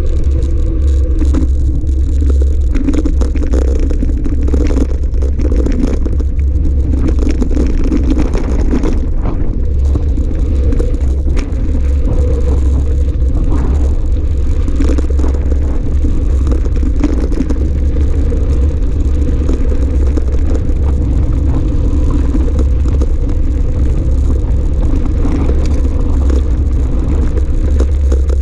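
E-mountain bike rolling over a gravel track: a steady low rumble of wind buffeting the action-camera microphone, with tyres crunching and the bike rattling over loose stones in many small knocks.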